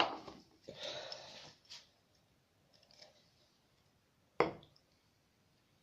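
Handling an aerosol can of shaving foam: a click, then about a second of hissing as foam is dispensed, and a single sharp knock about four seconds in.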